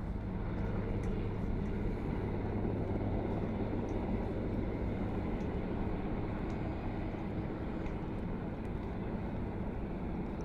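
Marine Corps presidential helicopter approaching to land, a steady low drone of rotors and engines.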